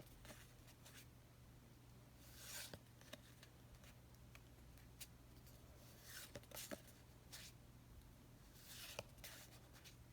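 Faint handling of Pokémon cards and packaging: a few short rustling swishes and light clicks over a low steady hum.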